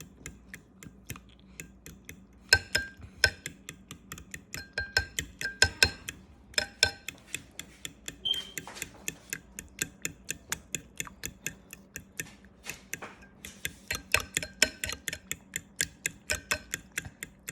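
A fork beating eggs in a bowl, clicking rapidly against the bowl's side, several strikes a second with a light ring, with a couple of short lulls.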